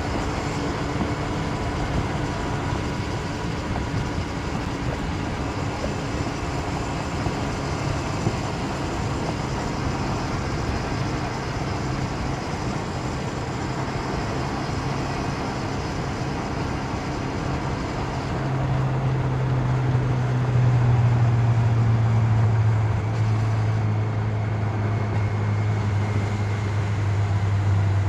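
Motorcycle engine running, most likely the 1992 Honda CB750 Nighthawk's air-cooled inline-four, with a steady low drone that grows louder and changes pitch a little over two-thirds of the way through.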